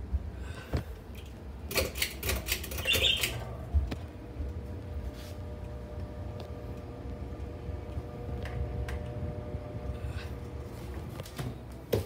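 Hampton Bay Metarie 24-inch ceiling fan running, a steady low hum. A quick run of clicks comes about two seconds in.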